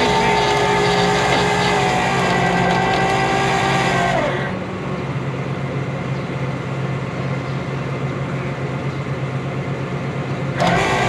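Truck engine running steadily with a whine that steps down in pitch twice in the first four seconds. The sound turns duller and quieter from about four seconds in, then comes back brighter near the end.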